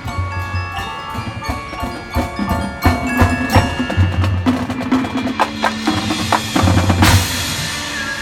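High school marching band playing its field show, led by the front ensemble's mallet percussion with struck bell-like notes and drums under it. A loud crash comes about seven seconds in, after which a held chord rings on.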